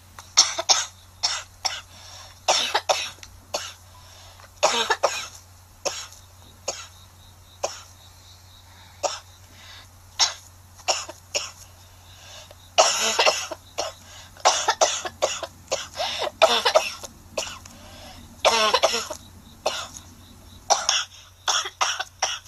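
A girl coughing over and over in a prolonged fit: single sharp coughs and quick clusters at irregular intervals, with longer runs of coughing about 13 and 18 seconds in.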